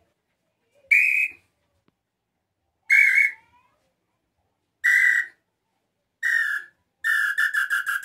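Wooden tinamou call (pio de bojo) blown inside cupped hands to imitate the tataupa tinamou (inhambu-chintã, 'nambu pé roxo'); the hands muffle the call to reach a deeper tone. Four separate whistled notes come about two seconds apart, each a little lower than the last, then near the end a quick run of notes falls in pitch.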